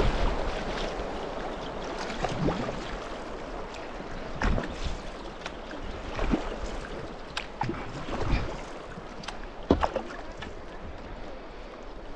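Rushing water around a kayak as it leaves a small rapid, fading over the first couple of seconds. Then kayak paddle strokes splash in calmer water, roughly every two seconds.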